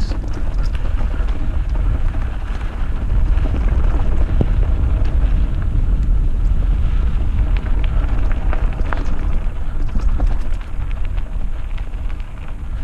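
Mountain bike riding down a rough trail: a constant low rumble of wind buffeting the microphone, with tyres on loose ground and many small clicks and rattles from the bike.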